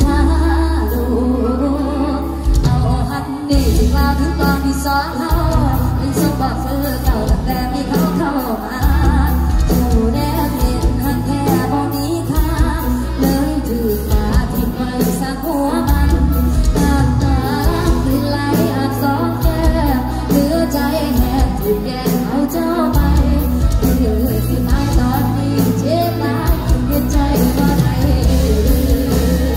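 Live band music with a woman singing lead into a microphone over keyboard, drums and a heavy bass line.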